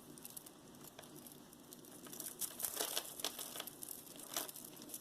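Small crinkles and light clicks of tangled copper wire and jewelry being worked loose by hand, busiest from about two seconds in.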